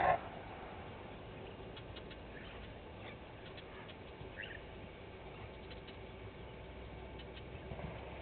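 Faint steady outdoor ambience with a few brief, faint high chirps scattered through it, and a short louder call right at the start.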